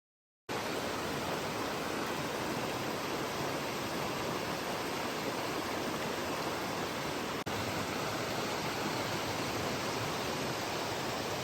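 Steady rushing of a swollen river in flood, the water running high over the crossing and the path.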